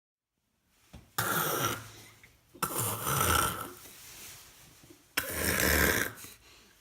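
Grey seal coughing and spluttering three times, about two seconds apart, each cough a sudden noisy burst under a second long. The cough comes from a lungworm infection, and the rescuers hope that after worming it is the seal bringing up the parasite.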